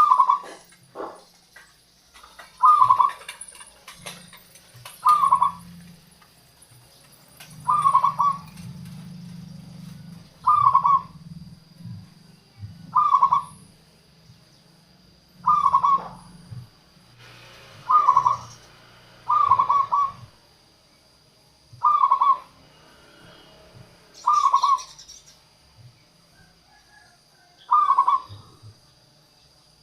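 Zebra dove (local perkutut) cooing: about a dozen short coo phrases, repeated one every two to three seconds.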